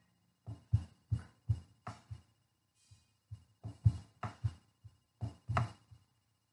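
A string of soft, dull thuds or taps, irregular, about two or three a second, with a short lull about three seconds in.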